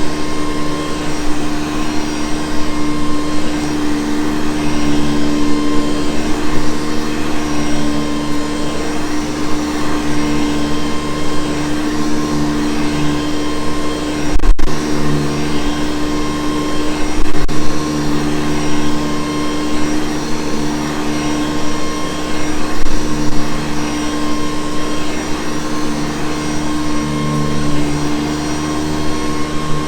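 Vintage Hoover Convertible U4387 upright vacuum cleaner running steadily, a motor hum and whine with several steady tones. The sound breaks off for an instant about halfway through, and there are a few low bumps.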